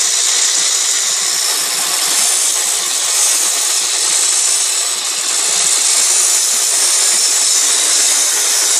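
Handheld power tool running steadily as it cuts through a skateboard deck: one loud, even, hissing whine with no pauses.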